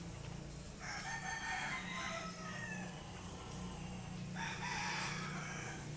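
A rooster crowing twice, a longer crow about a second in and a shorter one near the end.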